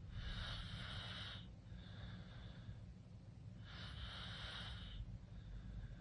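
A sleeping teenager snoring with the mouth open, in a slow breathing rhythm: two louder raspy breaths about three and a half seconds apart, each lasting about a second, with softer breaths between them, over a steady low rumble.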